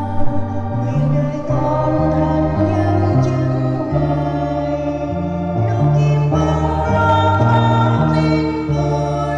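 Church choir singing a Vietnamese Catholic hymn, accompanied by organ with a stepping bass line.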